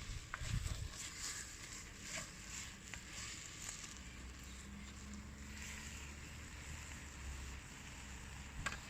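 Wood fire crackling in a fire pit, with irregular sharp pops and clicks, over low wind rumble on the microphone. A faint steady low hum runs through the middle and stops near the end.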